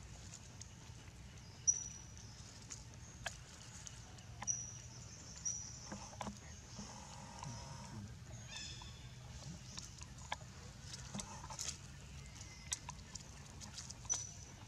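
Monkeys shifting on dry leaf litter: scattered small crackles and clicks. A few short high chirps come through, with one slightly longer call about two-thirds of the way in.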